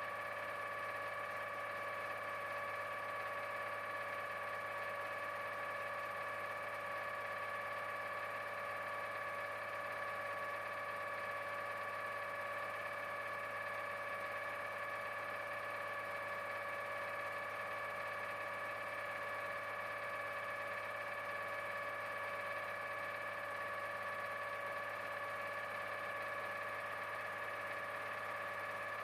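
Coiled tubing unit's hydraulic system running steadily under pressure: an even machine whine of several steady tones over a low hum, with no change in pitch, while the P14 pump's differential pressure is being set.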